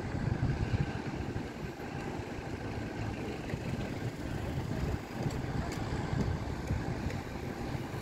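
Uneven low rumble of wind buffeting the microphone, mixed with the steady noise of distant engines.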